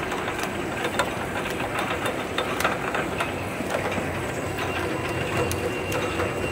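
Bouillon cube pressing and paper-wrapping machine line running: a steady mechanical hum with frequent sharp, irregular clicks and clatter from its moving parts.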